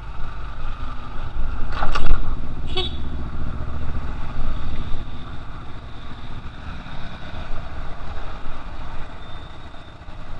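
Yamaha MX King 150 motorcycle running as it pulls away and rides off, its single-cylinder engine under a low rush of wind on the helmet microphone. Two short, sharp sounds come about two and three seconds in.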